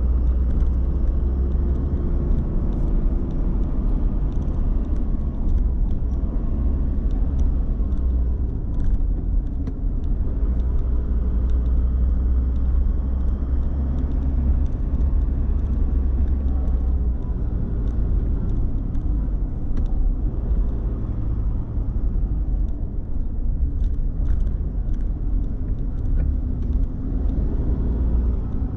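Car driving at a steady pace: a continuous low rumble of engine and road noise, with faint light ticks now and then.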